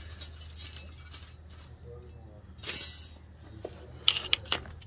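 A quick run of sharp metal clinks near the end, as hand tools or brake parts knock together during a brake job, over a steady low hum, with a brief rustling noise nearly three seconds in.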